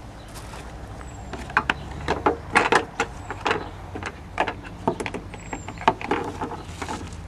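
Irregular clicks, knocks and scrapes of parts being handled and fitted by hand in a car's engine bay during reassembly, over a low steady hum.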